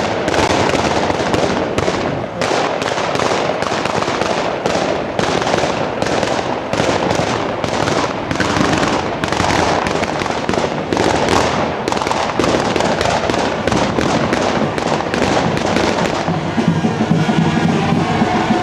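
A long, rapid string of firecracker bangs, several a second, going off over a constant background. Near the end the bangs thin out and music starts up.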